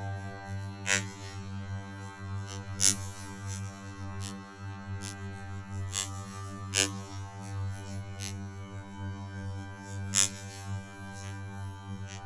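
A slowed-down sound effect: a steady low droning hum with sharp cracks and pops scattered through it, the loudest about three seconds in and again near ten seconds.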